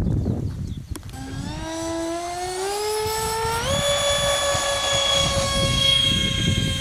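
Radio-controlled model jet's engine spooling up to full power for a takeoff run. A whine starts about a second in, rises in pitch, jumps up just before four seconds, then holds steady as the model rolls and lifts off.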